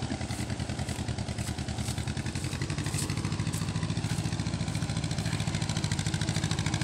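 Small tractor engine running steadily with a rapid, even beat, growing a little louder.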